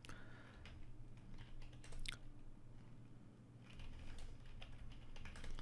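Typing on a computer keyboard: faint keystroke clicks, a few near the start, a sharper one about two seconds in, and a quicker run in the second half, over a faint steady low hum.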